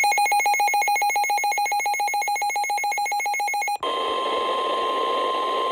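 A rapidly pulsing electronic beep, about nine pulses a second, for nearly four seconds. It then gives way to a steady high alert tone over radio static: the 1050 Hz warning alarm tone of NOAA Weather Radio announcing an emergency alert.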